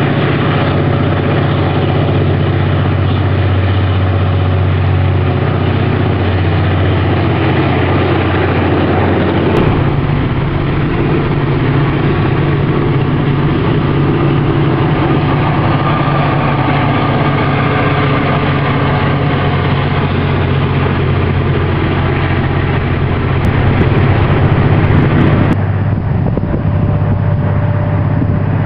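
Diesel locomotives of a freight train running under power as the train passes. About ten seconds in, this gives way to the sound from inside a moving car pacing the train: road and engine rumble mixed with the locomotives' steady drone.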